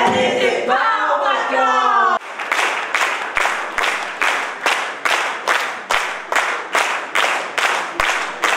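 Voices for about two seconds, then an audience clapping in time, a steady beat of about two and a half claps a second.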